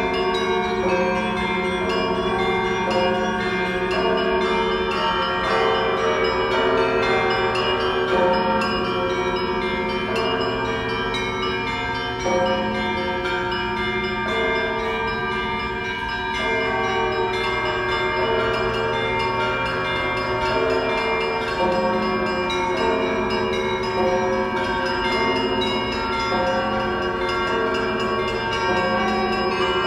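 Peal of the church bells of St. Michael's Golden-Domed Cathedral. Many bells of different pitches are struck over and over in a continuous, overlapping ringing.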